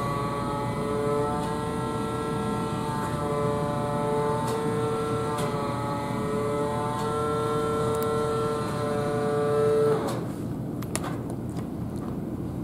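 O-gauge toy train rolling over three-rail track with a steady rumble. Over it runs a steady electric buzz that cuts off abruptly about ten seconds in, followed by a few light clicks.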